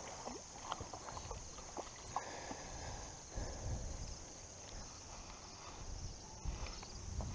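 Faint, scattered light knocks and taps over a low rumble, with a steady faint high hiss.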